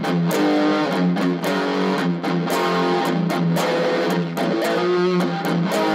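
Distorted Stratocaster-style electric guitar picked in repeated strokes, switching back and forth between palm-muted notes and open notes that ring out. This is a drill for landing the palm mute cleanly on the first stroke.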